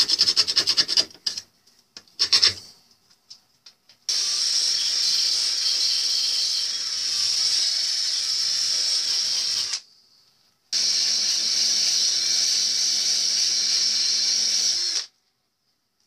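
A few rasping strokes of a hand scraper on the steel lock case, then a cordless drill driving a wire brush against the metal in two steady runs of about five seconds each with a short pause between. The runs cut off suddenly. The brush is stripping rust and loose paint from the corroded Yale lock body.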